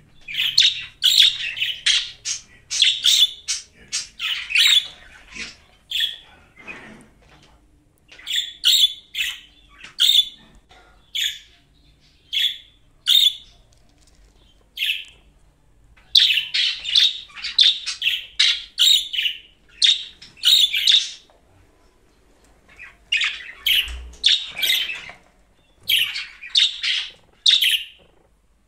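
Budgerigars chirping in quick runs of short, sharp calls, broken by a few pauses of a second or two.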